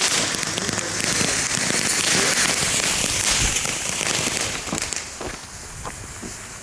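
Lit fuses of two small Nico Supreme Double Shot firework tubes hissing and sparking before the tubes fire. The hiss fades about five seconds in, leaving faint crackle and a few light ticks.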